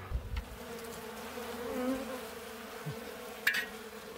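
Steady hum of honeybees buzzing around and over exposed brood comb. There is a short sharp click about three and a half seconds in.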